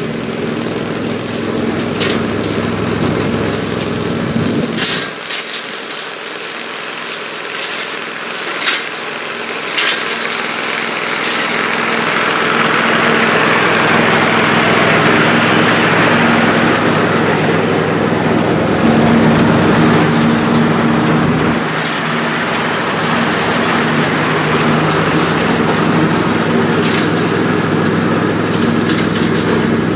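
Briggs & Stratton 24 HP V-twin engine of a Craftsman T3000 riding lawn mower running steadily while mowing with the blades engaged and a mulch plug fitted. A rushing hiss swells in the middle, and there are a few sharp clicks.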